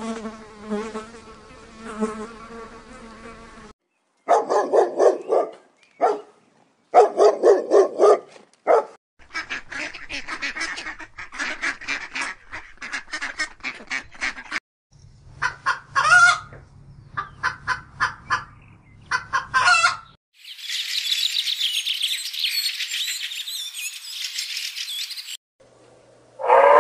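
A run of different animal sounds with short gaps between them. Honeybees buzz at a hive for the first few seconds, then come bursts of rapid honking and quacking waterfowl calls, and later a few seconds of dense, high-pitched hissing chatter.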